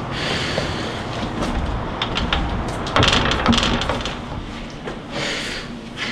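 Wooden front door being shut, with a sharp knock and rattle about three seconds in, among scattered clicks and rustling.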